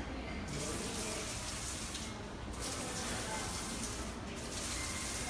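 Water from a fountain falling and splashing in a steady rush, its hiss briefly dropping out a few times.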